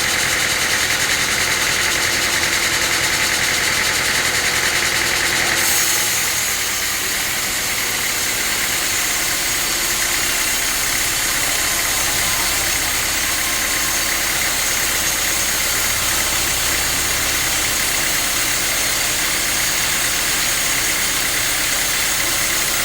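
Sawmill machinery running steadily. About six seconds in, the sound changes: its high hiss shifts and it becomes slightly quieter.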